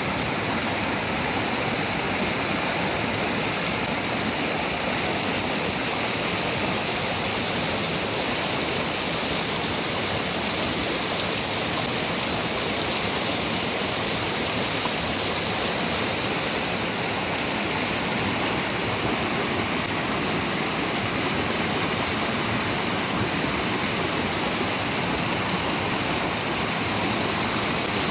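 Mountain stream water rushing over rocks: a steady, unbroken hiss of white water with no pauses or changes in level.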